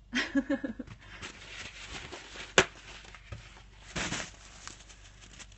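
A brief murmur of voice, then light handling noises on a kitchen counter: one sharp tap about two and a half seconds in and a short crinkly rustle about four seconds in.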